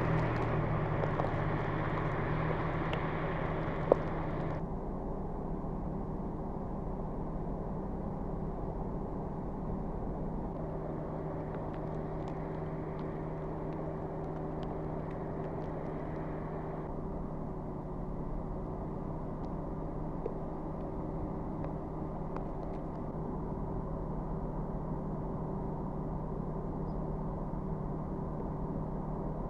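Steady low hum of a vehicle engine running, with the outdoor hiss around it changing abruptly a few times and a single sharp click about 4 seconds in.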